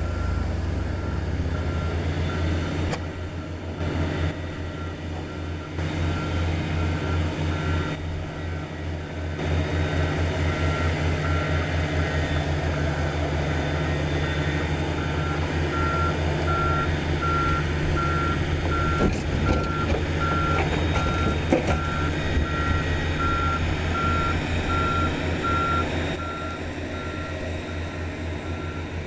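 Komatsu GD555 motor grader's diesel engine running with a steady low rumble while its reversing alarm beeps evenly, about one and a half beeps a second, the beeps growing louder from about halfway.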